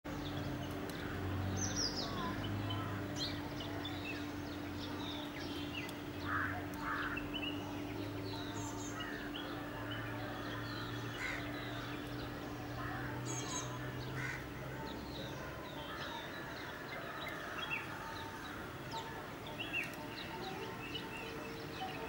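Small birds chirping and calling, many short scattered chirps, over a steady low hum that stops about three-quarters of the way through.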